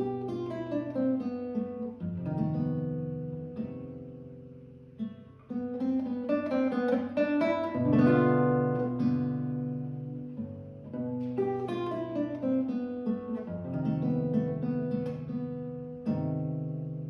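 Solo nylon-string classical guitar played fingerstyle: phrases of plucked notes and chords, one fading away about five seconds in before the next begins, loudest about eight seconds in.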